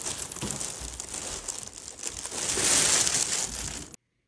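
Close rustling and crinkling handling noise, cloth brushing against a handheld phone's microphone, full of small clicks and loudest about three seconds in. It cuts off abruptly about four seconds in.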